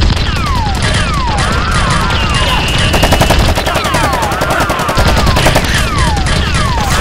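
Dubbed-in automatic gunfire sound effects: rapid volleys of shots, laid over the film in place of the toy blasters' own sound. Repeated falling whistles come in groups through the volleys.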